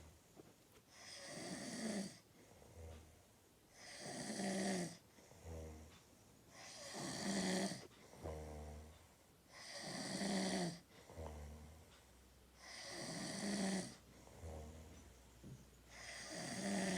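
Snoring in a steady rhythm: six long, loud snores about every three seconds, each followed by a shorter, quieter sound.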